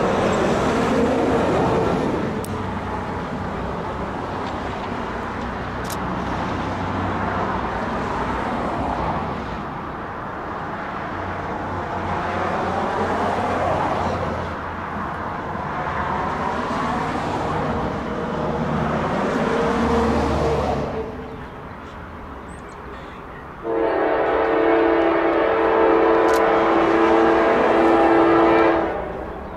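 Nathan K5LA five-chime air horn on a Norfolk Southern GE AC44C6M locomotive, sounding one long blast that starts about six seconds from the end and stops briefly just before the end. Before the horn, a steady rumbling noise with slow sweeping whooshes.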